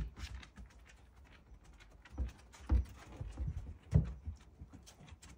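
A dog's paws thumping and claws clicking on wooden decking: a scatter of light knocks and clicks, with the heaviest thumps a little after two seconds, near three seconds and at four seconds.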